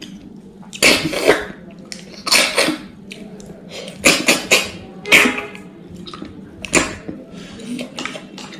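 A person sucking cooked snails out of their shells: a run of sharp, loud slurps, about five in all, with quieter mouth and chewing noises between them.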